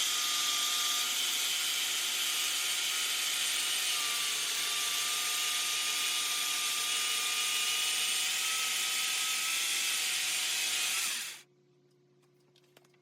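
Circular saw fitted with a Prazi chainsaw-bar beam cutter, running steadily as it cuts through a stack of pine boards in one pass. It stops suddenly about eleven seconds in.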